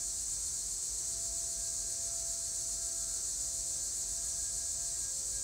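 Steady high hiss with a faint steady hum underneath, the recording's own background noise; no other sound.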